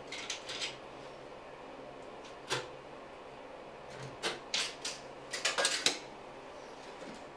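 Pencil and steel tape measure scraping and tapping against cement board while a mark is made on the wall, in a few short groups of scratches and clicks.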